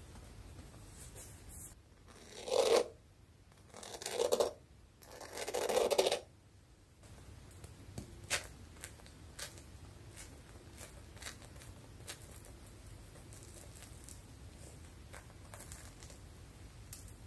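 Crisp coffee-topping crust of freshly baked coffee buns crackling under fingers: three crunchy rustles in the first six seconds, each growing louder, then scattered light crackles as a bun is handled and torn open.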